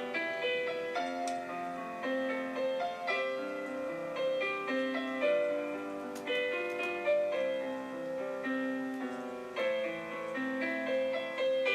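Background piano music: a gentle melody of sustained notes over chords.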